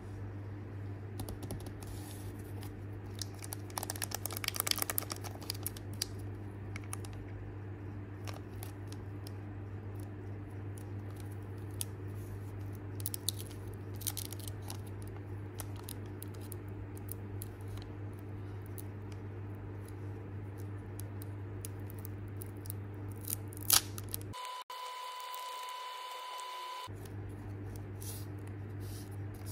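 A foil trading-card booster pack wrapper crinkles and rustles in the hands as it is torn open, with crackly bursts that are thickest a few seconds in and again around the middle. A steady low hum sits underneath. Near the end there is a sharp click, then for about two seconds the hum gives way to a steady tone.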